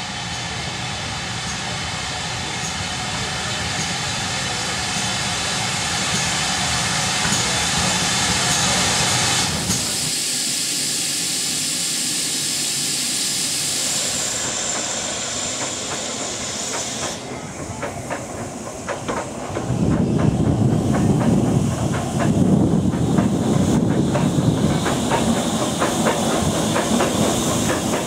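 Preserved steam locomotives: steady steam hissing for the first third, a high, steady hiss around the middle, then a train running by with rapid rhythmic clicks and rumble that are loudest over the last eight seconds.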